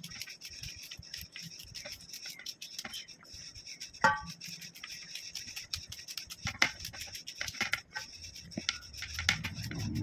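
Small knife slicing fresh okra pods held in the hand: an irregular run of soft, crisp cuts and snaps. A brief, sharp ringing sound stands out about four seconds in.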